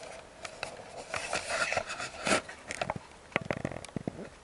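Handling noise right on the camera's microphone as the camera is moved and tilted: rustling and scraping, loudest about two seconds in, then a run of sharp knocks and clicks near the end.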